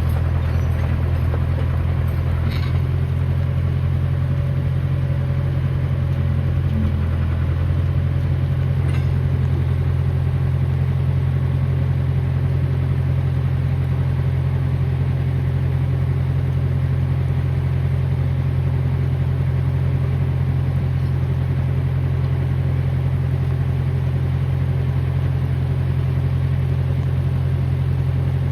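John Deere 450 crawler loader's engine idling steadily, an even low hum with a few faint clicks in its first seconds.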